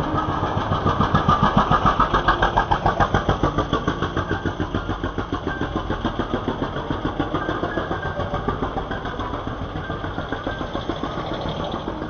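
A small motor vehicle's engine running with a fast, even chugging pulse. It is loudest a second or two in and eases off a little after.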